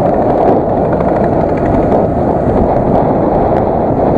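Steady wind rush and motorcycle riding noise picked up by an SJ4000 action camera's built-in microphone at road speed.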